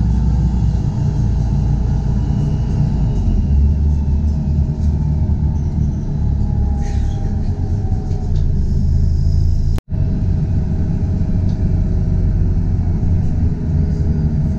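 Heavy, steady low rumble of a city bus underway, with a faint gliding whine near the middle. The sound breaks off for an instant about ten seconds in, then carries on.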